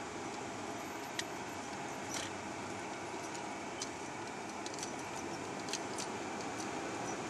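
Steady hum of a car driving, heard from inside the cabin, with a few faint scattered clicks and taps.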